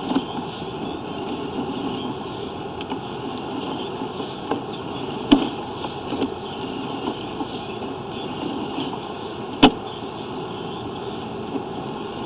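Steady mechanical running noise with small ticks and two sharp knocks, about five and nine and a half seconds in, as a sewer inspection camera is pushed along a drain line.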